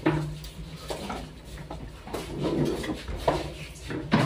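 Scattered clinks and knocks of plates, spoons and plastic food containers being handled at a meal table, about one every second, over a steady low hum.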